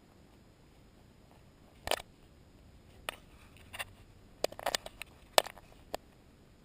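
A series of short, sharp clicks and knocks at irregular intervals, bunched together in the middle, over a quiet background with no running water.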